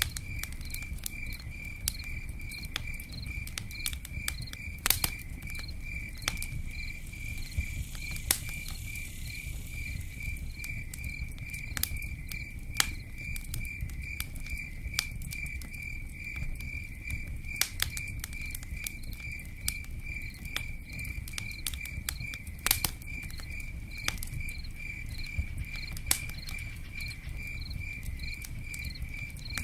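Cricket chirping steadily, about three chirps a second, over a low rumble, with scattered sharp clicks and pops throughout.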